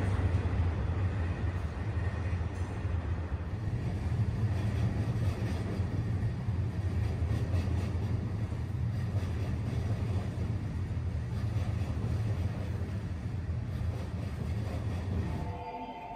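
Train running on the elevated tracks, a steady low rumble that cuts off suddenly near the end.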